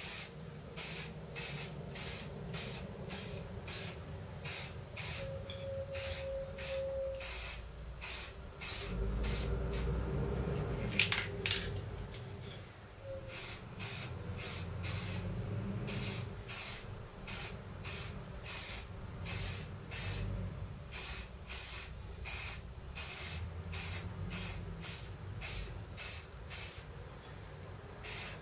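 Aerosol can of spray primer sprayed in short, evenly repeated bursts, about one and a half a second. There is a single sharp click about a third of the way through.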